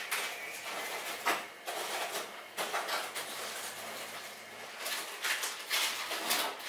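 Brief rustling, sticky swishes repeating every second or so as a rope of pulled sugar candy is stretched and drawn over a wooden peg by hand.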